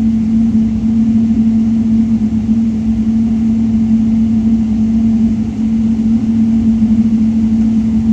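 Steady engine and air-system drone inside the cabin of a Boeing 777-300 taxiing after landing: one constant low hum over a rumble.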